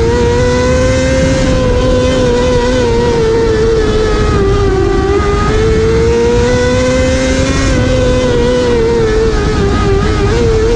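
Dirt-track race car engine heard from onboard at racing speed, its pitch sagging twice as the driver lifts for the turns and climbing again down the straights, over a rough rumble.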